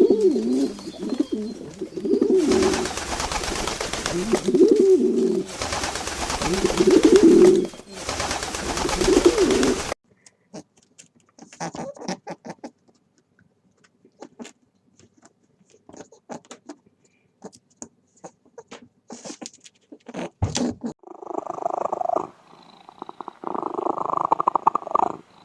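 Pigeons or doves cooing, one low call about every two seconds over a rustling background, for the first ten seconds. After that come scattered light clicks and rustles, with two short bursts of noise near the end.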